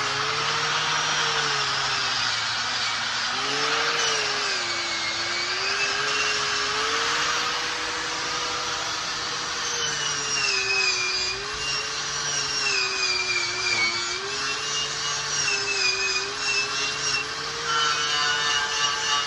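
Handheld grinder running a wire wheel against steel welds. The motor's pitch sags and recovers again and again as the wheel is pressed into the metal and eased off, over a steady hiss of brushing.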